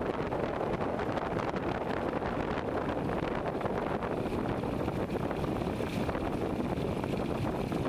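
KB3 single-seat gyroplane's engine and pusher propeller running steadily, with the rotor turning overhead, and wind buffeting the microphone.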